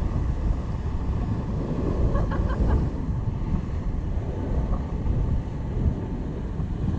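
Wind buffeting the microphone, with ocean surf washing against the shore.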